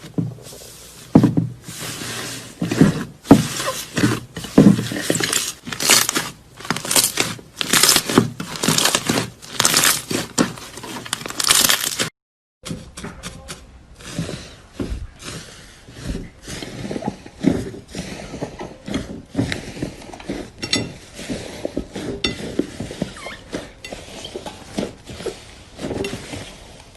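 Crunchy slime being squeezed and pressed, crackling and popping in quick repeated bursts. It cuts off briefly about halfway, then starts again with denser, softer crackles.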